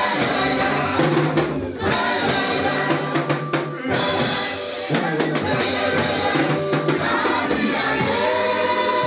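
Choir music with a full drum kit and bass drum keeping a steady beat, the sung melody running underneath.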